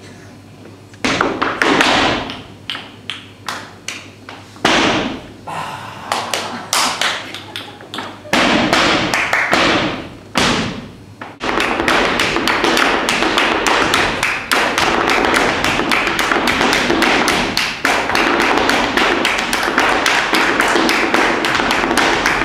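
Flamenco zapateado: a male dancer's shoes striking the floor in loud stamps and short rapid flurries, breaking about halfway into a long unbroken run of fast strikes.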